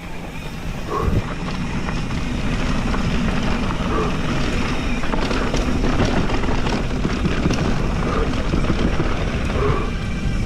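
2020 Santa Cruz Hightower full-suspension mountain bike riding downhill on dirt singletrack: tyre roar and the rattle and chatter of the bike over rough ground, with wind buffeting the microphone. The noise grows louder about a second in as speed builds.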